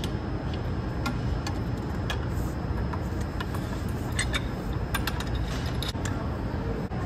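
Scattered light metal clicks and taps from a 3/8 socket extension, lengthened with conduit, being turned inside a ground hydrant's valve pit. A steady low rumble underlies them.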